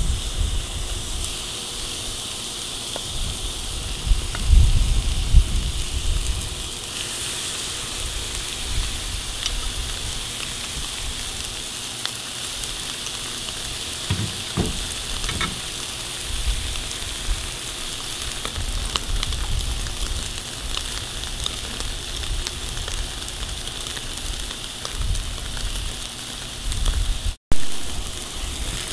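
Raw ribeye steaks sizzling on the hot cast iron grate of a charcoal-fired Lodge Sportsman grill, a steady hiss that grows louder about seven seconds in as a second steak joins the first. Low thumps and rumbles come in the first few seconds, and the sound cuts out for a moment near the end.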